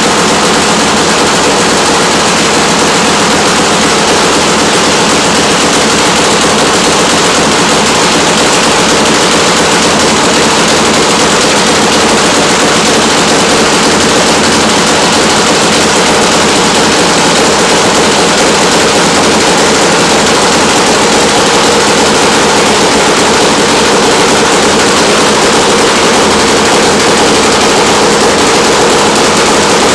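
Nitro-fuel Harley V-twin engine of a Top Fuel drag bike running steadily, a loud, rapid machine-gun-like string of exhaust bangs.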